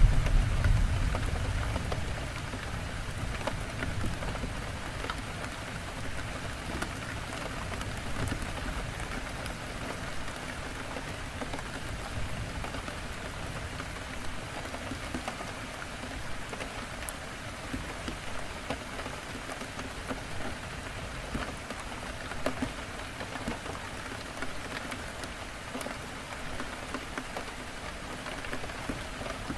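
Heavy rain falling steadily against a window, an even hiss dotted with the ticks of single drops. A low rumble at the start dies away over the first few seconds.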